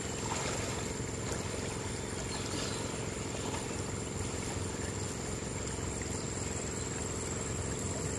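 Steady rush of a shallow river's current flowing around a wading man, with a thin, steady high-pitched whine over it.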